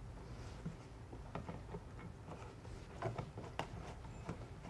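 Faint, scattered clicks and taps as a cover plate is fitted over a duplex wall receptacle, with a few sharper clicks around the middle.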